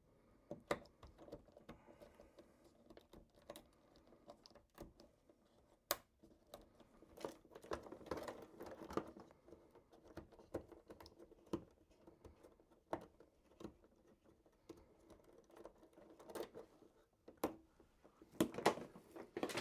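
Scattered light clicks, taps and rustles of hands disconnecting wires and heating controls from a wiring test board, irregular and faint.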